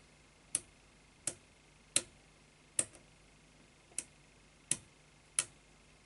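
Metal buttons of a push-button combination padlock clicking as they are pressed one after another, seven sharp clicks about every two-thirds of a second. The buttons are being tested in turn while the shackle is held under tension, to find the one that binds.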